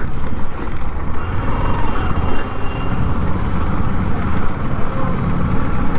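Motorcycle engine running at low speed with road noise as the bike rides along a rough dirt road, amid street traffic.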